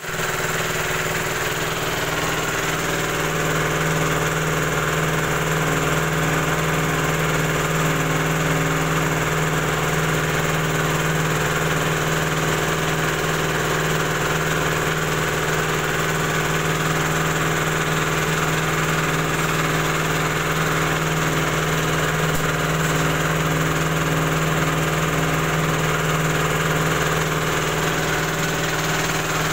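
Vertical pellet mill with a 4 mm die running steadily, pressing feed into pellets; the machine's drive makes an even, unchanging drone with fixed tones.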